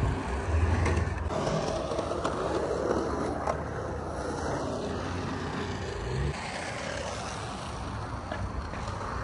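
Skateboard wheels rolling and carving on the concrete of a skate bowl, a steady rolling rumble, with a single knock about six seconds in.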